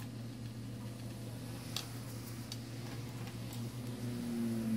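A few faint clicks from a small Phillips screwdriver working screws into a smartphone's plastic back frame, over a steady low hum.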